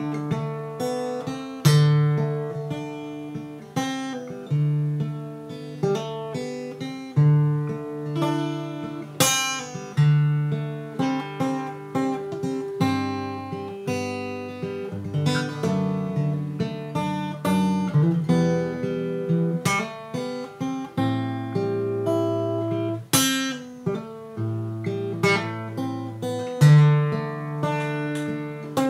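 Solo acoustic guitar playing a song's chord progression, picked and strummed, each chord left ringing over a changing bass note.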